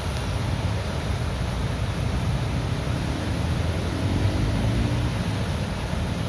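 Water pouring out of a dam's gates into the river, a steady deep rushing with hiss. A faint engine from passing traffic can be heard in the background through the middle.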